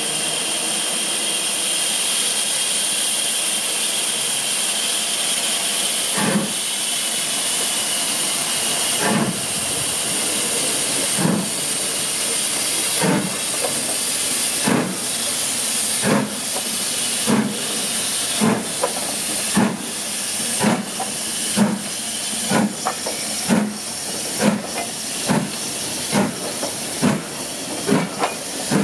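BR Fairburn 2-6-4 tank steam locomotive pulling away with its train: a steady hiss of steam, then about six seconds in the two-cylinder exhaust beats begin, slow at first and quickening steadily as the engine gathers speed.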